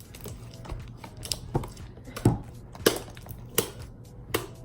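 Fluffy slime being squeezed and stretched by hand, giving a string of sharp, irregular clicks and pops, about one every half second to second.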